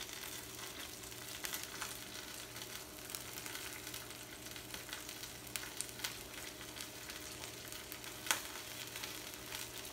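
Shrimp in red sauce sizzling in a stainless steel skillet, with a serving spoon scraping and clicking against the pan as portions are scooped out. One sharp clink near the end is the loudest sound.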